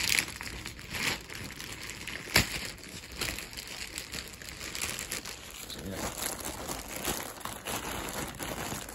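A plastic mailer bag crinkling and rustling as it is handled and opened, with a sharp snap about two and a half seconds in.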